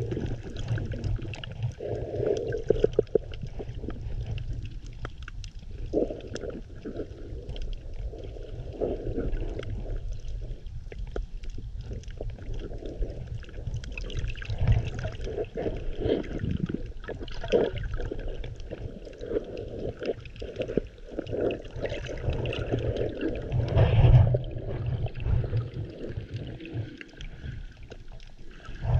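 Underwater sound heard through a submerged GoPro: water moving and gurgling around the camera with a steady low rumble, irregular surges and scattered faint clicks, one surge louder about 24 seconds in.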